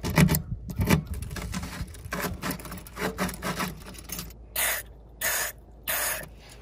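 A metal key scraping, clicking and rattling as it is worked into a dirt-clogged truck flatbed storage-box lock freshly treated with dry lock lube. Three short hisses come in the second half.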